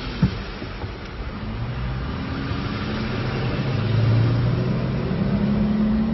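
A vehicle's engine running as it drives along a road under shallow floodwater, over a steady hiss of tyres and water. There is a single sharp knock just after the start. From about a second and a half in, the engine note comes up and holds as it pulls away.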